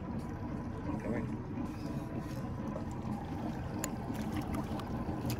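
Boat's motor idling with a steady low hum, with a few faint clicks.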